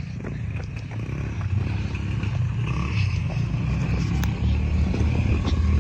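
Quad ATV engines running along a dirt trail, a steady low drone that grows gradually louder, with a few light rattles and knocks.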